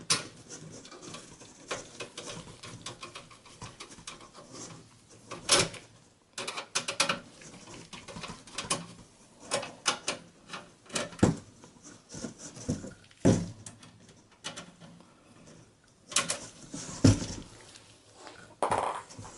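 Irregular clicks and knocks of a Phillips screwdriver and hands working on the metal case of a Dell OptiPlex 7020 small-form-factor PC while the front USB panel is unscrewed and freed, with a few louder knocks.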